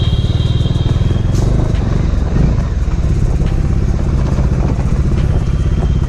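Bajaj Dominar 400's single-cylinder engine running at low speed as the motorcycle rolls slowly down a lane, with a thin high-pitched squeal in about the first second.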